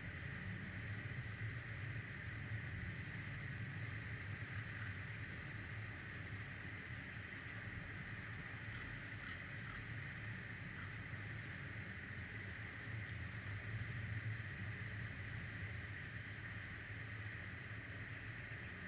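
Steady wind rumble and hiss on an outdoor nest-camera microphone.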